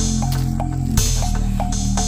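Background music with a steady beat over sustained bass notes; the bass shifts to a new chord about a second in.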